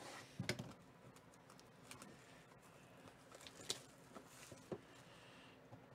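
Faint handling of a shrink-wrapped cardboard trading-card box: a scatter of light clicks and taps with a couple of brief crinkles of the plastic wrap.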